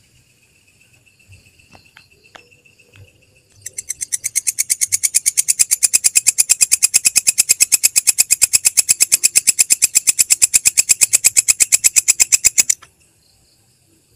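Belalang kecek, a bush cricket, calling: a long, even train of rapid sharp clicks, about ten a second, that starts a few seconds in, swells over its first second, then stops abruptly near the end. A fainter, steady high trill is heard before it.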